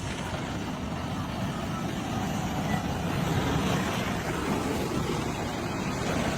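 Steady engine or machinery noise, with no clear rhythm or change.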